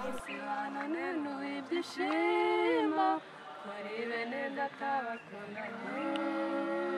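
Several women singing together a cappella, holding long notes that glide in pitch.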